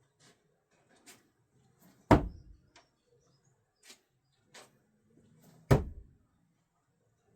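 Two thrown screwdrivers striking the target, a loud thud with a short ring about two seconds in and another about three and a half seconds later, with light clicks and taps between.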